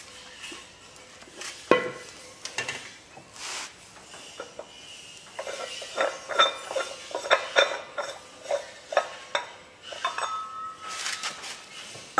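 Steel oxygen cylinder clanking and knocking against the steel frame of a gas welding cart as it is set in place, a run of irregular metallic knocks, some ringing briefly.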